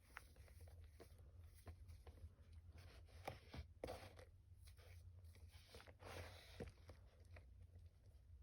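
Faint crunching and scraping of reformed gym chalk: scattered small cracks and clicks, with a couple of longer gritty scrapes about four seconds and six seconds in.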